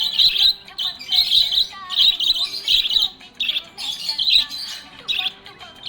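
Budgerigar chirping and warbling in quick, busy clusters of high chirps, with short breaks between them.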